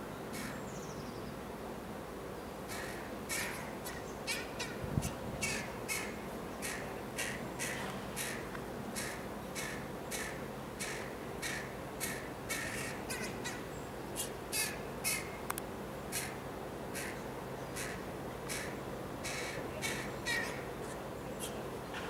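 Juvenile carrion crow begging with a long run of short, harsh caws, about two a second, starting a few seconds in.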